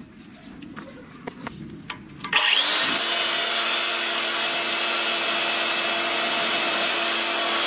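Angle grinder driving a homemade centrifugal blower attachment, switched on about two seconds in and running steadily with a high whine and rush of air, blowing onto the charcoal in a grill. Before it starts, faint crackles of the burning charcoal.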